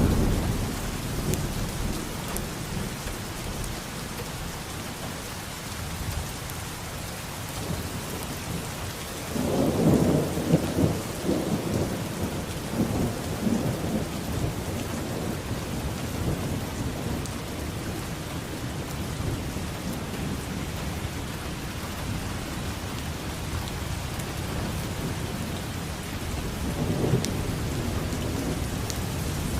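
Steady rain falling, with thunder: a sharp clap at the very start, a louder rumbling peal about ten seconds in that dies away over a few seconds, and a weaker rumble near the end.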